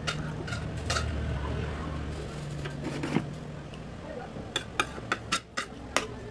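Dishes and cutlery clinking in a sink as they are washed by hand: a few sharp clinks, then several in quick succession near the end, over a low steady hum.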